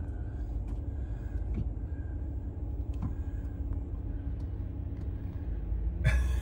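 A motor vehicle running steadily, a low rumble with a faint steady hum.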